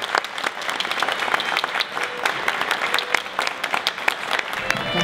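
A small seated crowd applauding, many hands clapping steadily.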